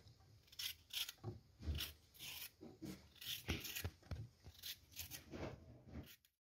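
Knife cutting fresh coconut meat into small pieces: a run of short scraping cuts, about three a second, stopping suddenly just before the end.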